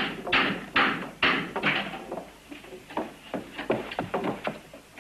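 Brisk footsteps on a hard floor, about two steps a second, with lighter knocks and taps in the middle stretch.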